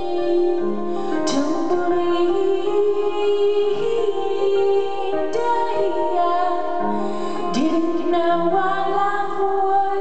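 A woman singing a song live with her own piano accompaniment: a sustained, gliding vocal line over held piano chords, with fresh chords struck about a second in, about five seconds in and again about seven and a half seconds in.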